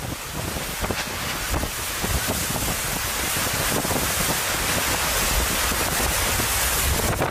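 Hurricane wind blowing hard against the microphone, mixed with driving rain. It builds louder over the first couple of seconds, then holds steady.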